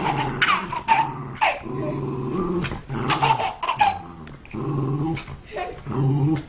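A dog growling and yipping in play, in short repeated bursts of about half a second each.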